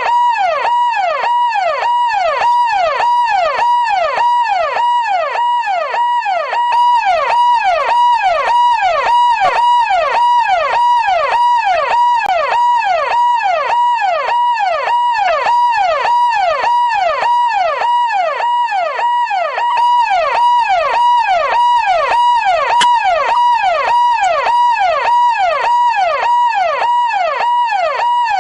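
Electronic police siren in a fast yelp, its pitch rising and falling quickly over and over, held briefly at the top of each sweep. It runs loud and unbroken.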